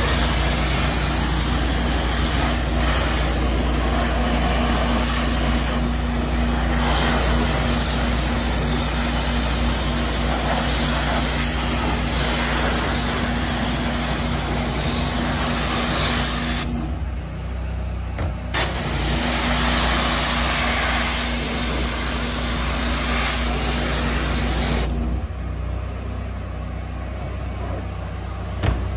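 Trailer-mounted hot-water pressure washer: its engine-driven unit runs with a steady low hum under the hiss of the high-pressure spray hitting plastic trash bins. The spray cuts out for about two seconds a little past halfway and again near the end, leaving only the machine's hum.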